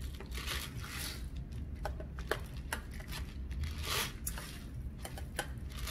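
Plastic spice packaging rustling and crinkling in a few short bursts as it is handled, with scattered small clicks and taps of containers.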